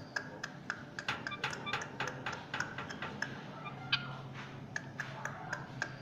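Caged parakeet making quick, irregular clicks and ticks, several a second, with a few short high chirps among them, over a low steady hum.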